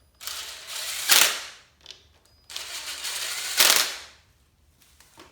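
Impact wrench tightening a bolt in two runs of about a second and a half each, each rattling harder near its end as the bolt seats.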